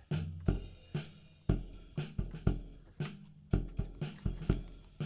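Background music with a steady drum beat, about two beats a second, with hi-hat and cymbal over a bass line.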